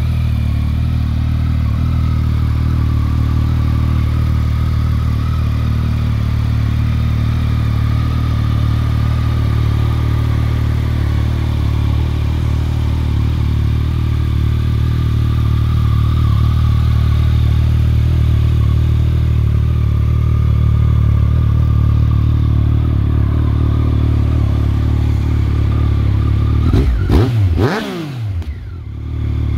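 Yamaha XSR900's 847 cc three-cylinder engine idling steadily through an Akrapovic exhaust, with one quick rev that rises and falls back near the end.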